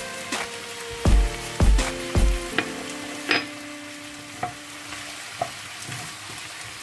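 Chicken thighs and vegetables sizzling in a nonstick frying pan while a wooden spoon stirs them, with a few sharp ticks of the spoon against the pan. Background music with deep beats and held notes plays over it, loudest in the first half.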